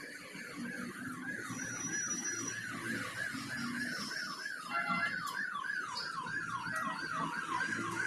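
An electronic alarm or siren wailing in fast, evenly repeated falling sweeps, about three a second.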